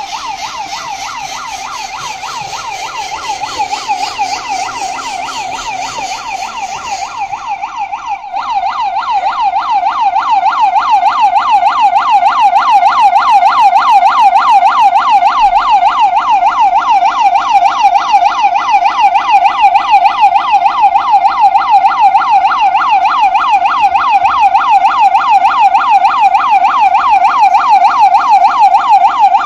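Electronic emergency siren in a rapid yelp: a tone sweeping up and down several times a second. It becomes louder and clearer about eight seconds in.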